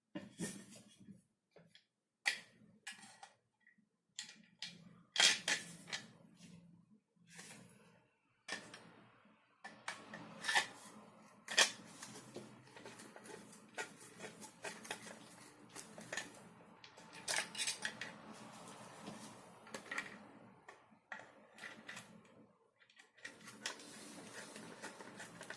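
Irregular clicks, taps and light clatter of 3D-printed plastic parts being handled and fitted together during assembly of an airsoft gun kit. From about nine seconds in there is a steady rustling scrape under the clicks.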